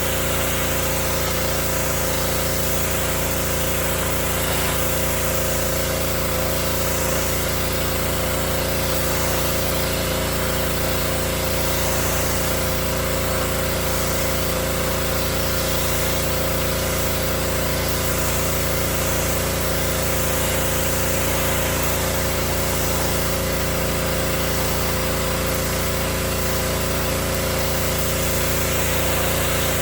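Gasoline pressure washer engine running steadily, with the hiss of its water jet spraying the deck boards.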